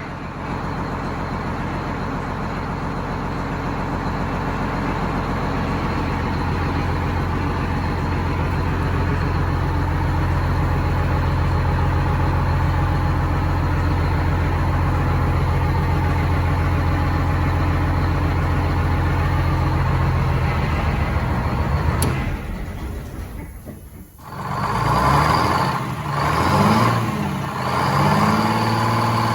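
GM 4104 bus's Detroit Diesel 6-71 two-stroke engine running steadily. It dies away about three-quarters through, then revs up and down three times near the end.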